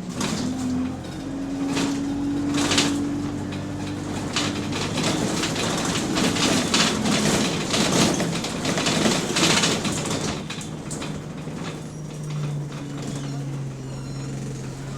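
Single-decker bus engine heard from inside the bus, running steadily with its pitch holding and then shifting, with a noisier stretch of rattle and hiss in the middle. This bus has an exhaust leak.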